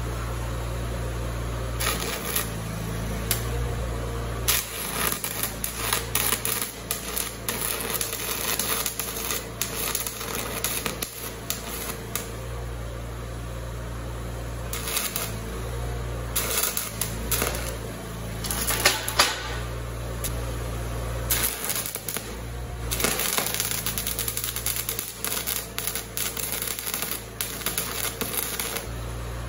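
Stick-welding arc burning off a metric wrench clamped in the electrode holder as a makeshift rod: the arc crackles and pops irregularly, breaking off and restriking several times, over a steady low hum. It starts about two seconds in and stops just before the end.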